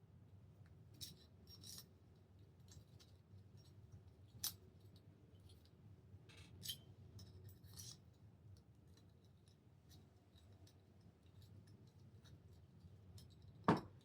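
Faint scattered metallic clicks and taps of a hand wrench on the cylinder head screws of a Traxxas 3.3 nitro engine as they are tightened, with a few sharper clicks and the loudest one near the end.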